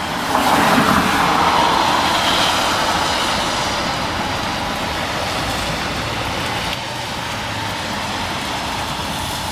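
Car tyres hissing on a rain-soaked road as a car passes. The rush swells about half a second in and fades slowly over several seconds, over a steady wash of wet-street noise.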